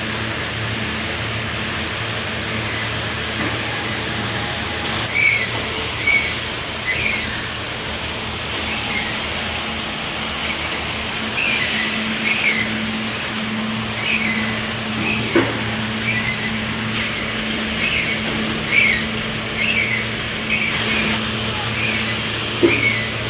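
Aluminum can decoating machinery running with a steady hum. From about five seconds in, short high-pitched clinks or squeaks come roughly once a second.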